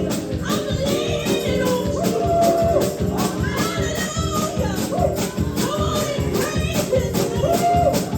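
Live gospel praise-and-worship music: voices singing over a band with a fast, steady percussion beat.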